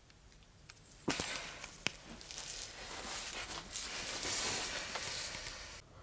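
Running meltwater from a frozen waterfall: a few faint drips, then about a second in a sharp knock and a steady hissing splash of water that stops abruptly near the end.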